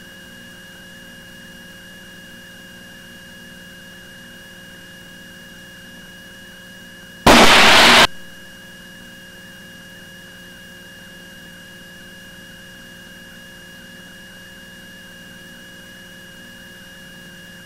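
Steady electrical hum and hiss of an aircraft radio and intercom audio feed, broken about seven seconds in by one loud burst of static lasting under a second, a radio transmission keyed on and off without clear words.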